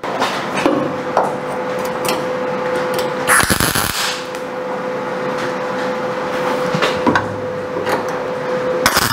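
MIG welder arc crackling and spitting while tack welding a steel roof-pillar seam, with a steady hum underneath and a few louder pops.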